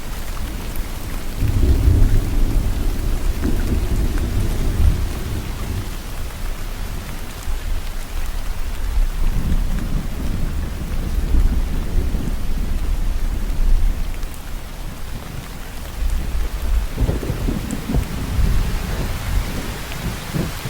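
Steady rain with rolls of low thunder rumbling through it, swelling three times.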